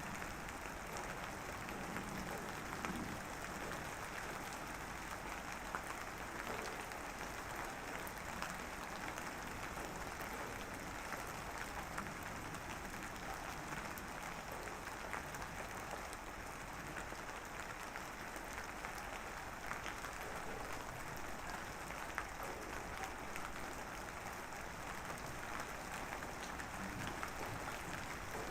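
Light drizzle pattering steadily on a surface, a dense even hiss of fine drops with scattered small ticks.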